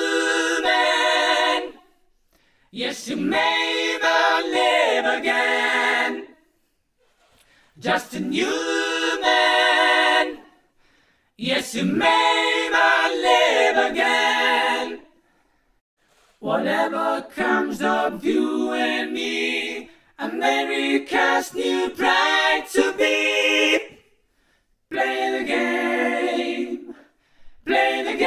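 A cappella vocal harmony: several voices singing together without instruments, in phrases of two to four seconds separated by brief silences.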